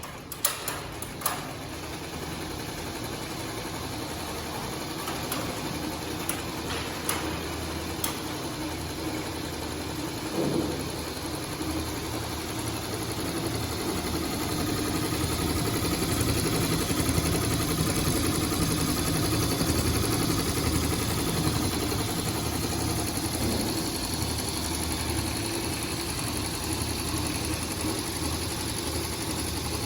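Elucky computerized embroidery machine running a flat embroidery design by itself: a steady, continuous mechanical run of the needle-and-hook stitching, with a few sharp clicks as it starts.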